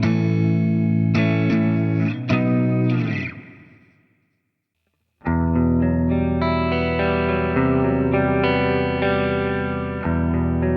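Electric guitar played through a Valeton GP-200 multi-effects processor with a distorted, effected tone. A phrase rings out and fades to silence about four seconds in. About a second later, playing on the next preset starts with sustained notes.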